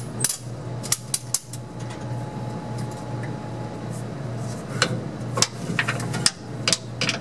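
A wrench clinking and clicking on the bolts that hold the fuel lines to the frame rail under a truck as they are loosened. Scattered sharp metallic clicks come several together about a second in and again through the last few seconds, over a steady low hum.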